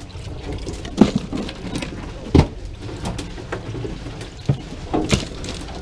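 Several sharp knocks and clicks on a fishing boat's deck, over a steady low rumble and water noise.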